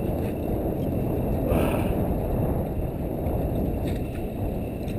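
Steady low rumble of wind and water at sea around a small fishing boat, with a brief hiss about one and a half seconds in.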